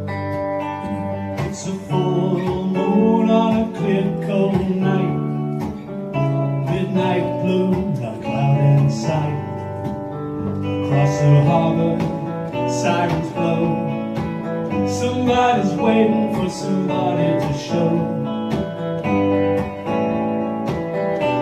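A man singing a song while accompanying himself on a Telecaster-style electric guitar. The guitar plays alone at first, and the voice comes in about two seconds in.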